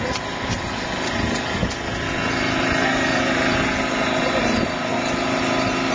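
A small engine or motor running steadily at an even pitch.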